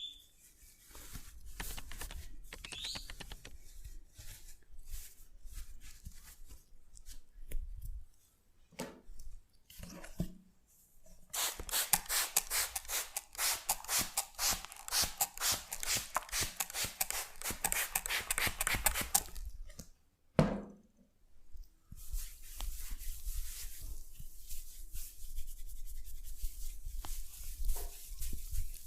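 Hands massaging a head: fingers rubbing and scratching through the hair and scalp, with a fast, even run of strokes in the middle lasting about eight seconds.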